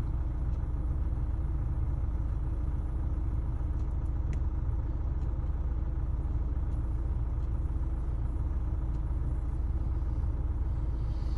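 Renault Talisman's engine idling steadily, heard inside the cabin as a low, even rumble.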